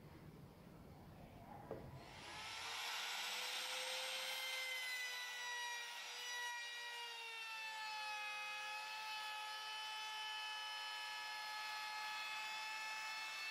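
Compact electric trim router running with a steady high whine and many overtones, coming in about two seconds in; its pitch sags a little over the next few seconds, then holds. Before it, a light knock.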